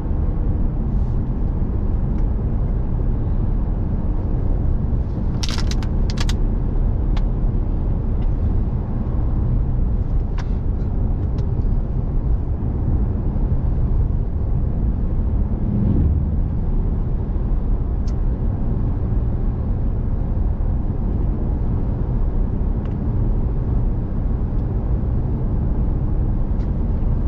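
Steady low rumble of engine and tyre noise inside a diesel truck's cab while driving, with a few sharp clicks or rattles around five to six seconds in and again about ten seconds in.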